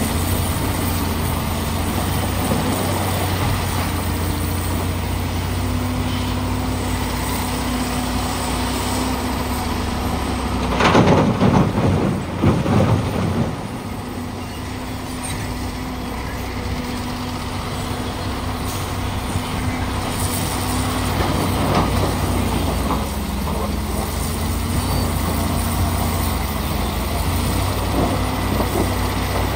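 The Komatsu PC450LC excavator's diesel engine runs steadily under hydraulic load, its pitch shifting a little as the machine swings. About eleven seconds in, a bucketful of broken rock crashes and rattles into the steel body of a dump truck for two to three seconds, the loudest sound here.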